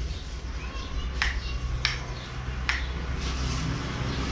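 A few short, sharp clicks, three of them under a second apart, over a low steady rumble of background noise.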